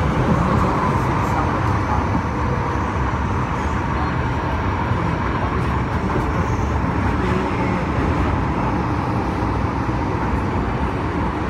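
Steady running noise heard inside a moving MTR M-Train (Metro-Cammell electric multiple unit): a continuous rumble of wheels on rail and traction noise.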